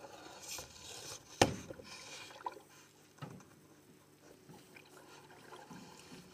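Oars working a rowboat: faint water swishing and trickling off the blades, with one sharp knock about a second and a half in and a couple of fainter knocks after it.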